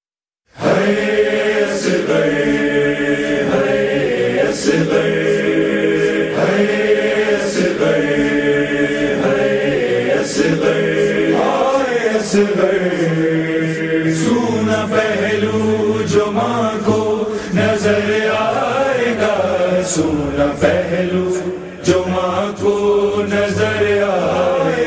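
A chorus of voices chanting in slow, drawn-out tones, the opening of an Urdu noha (Shia lament). It starts about half a second in.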